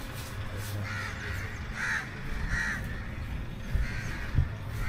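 Crows cawing, a series of harsh calls spaced under a second apart, over a low steady rumble.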